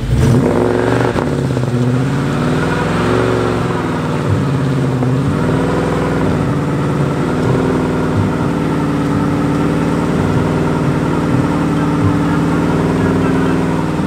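Dodge Charger 392's 6.4-litre Hemi V8 revving hard in a burnout, the revs rising and falling again and again as the rear tyres spin. The line lock was not working, so the burnout stays weak.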